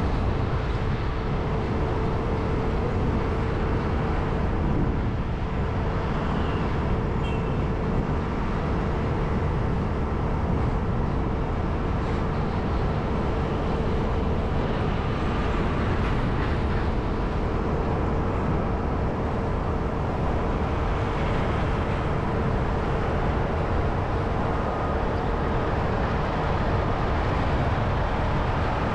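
Steady vehicle and road noise from travelling along a city street, with a constant low hum underneath.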